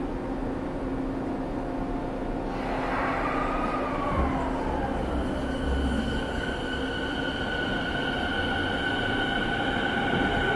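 Rinkai Line 70-000 series electric train heard from inside the car, running through the tunnel: a steady rumble of wheels on rail. A hiss swells about two and a half seconds in, and a high ringing tone sets in about halfway and holds.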